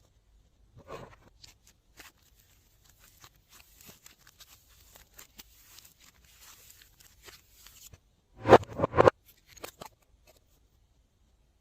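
Glossy slime being worked by hand, with faint scattered crackles and then a louder burst of rapid sticky pops and clicks about eight seconds in.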